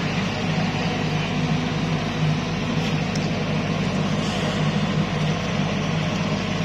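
Steady low mechanical drone, unchanging in level, with no music from the speakers.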